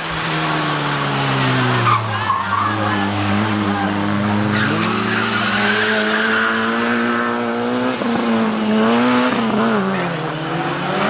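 A small Group N 1300–1600 cc hatchback racing uphill at high revs, its engine pitch climbing and dropping with gear changes. Its tyres squeal through a hairpin about midway.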